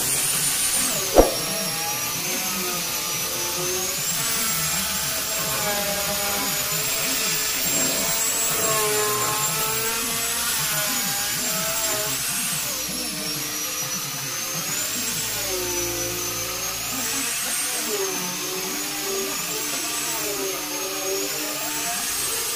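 Handheld electric angle grinder with a sanding disc running continuously against teak wood. Its high whine wavers in pitch as the pressure on the wood changes. A single sharp click about a second in.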